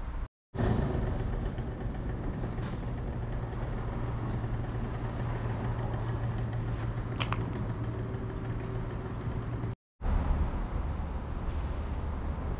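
Steady low outdoor rumble, like distant road traffic, with a faint steady hum. It drops out to silence for an instant twice, about half a second in and near the end.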